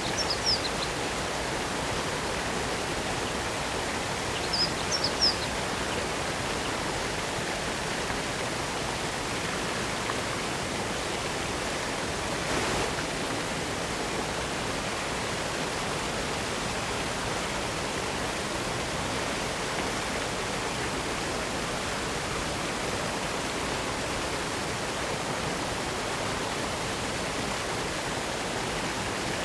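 Steady rush of a waterfall, water falling and splashing without pause. A few short high chirps sound right at the start and again about five seconds in.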